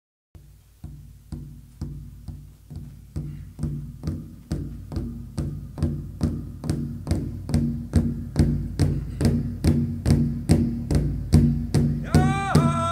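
Background music: a steady drumbeat of about two beats a second, fading in from silence and growing louder. A singing voice comes in near the end.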